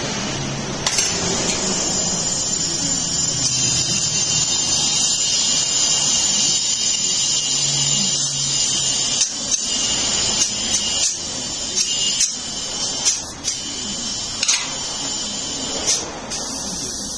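A power tool runs with a high whine for about eight seconds, then in short stop-start bursts with clicks between them.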